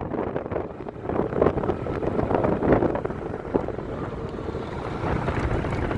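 Motorcycle engine running while riding over a dirt track, with wind buffeting the microphone.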